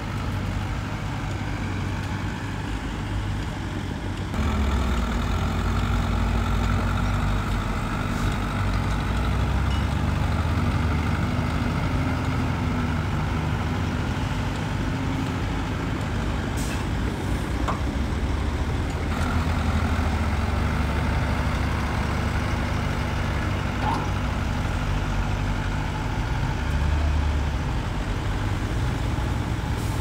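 Heavy diesel engines of earthmoving machinery running steadily under load, getting louder about four seconds in, with a few faint clicks over the engine sound.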